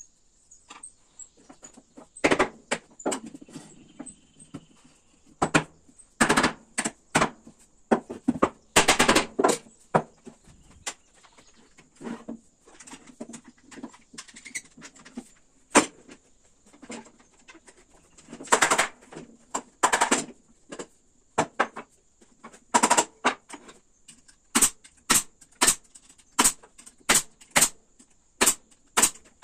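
Irregular knocks and clatters of wooden stool parts and bar clamps being fitted and handled, then, from about 24 s, a steady run of sharp pneumatic pin nailer shots, about two a second, fastening the glued frame rails.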